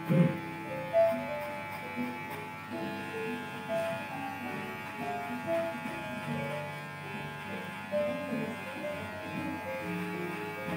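Electric hair clipper buzzing steadily as it trims the side of a customer's head, with background music playing.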